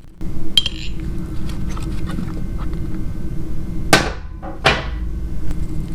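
Two sharp metal strikes about three-quarters of a second apart, roughly four seconds in, each ringing briefly, over a steady low workshop hum.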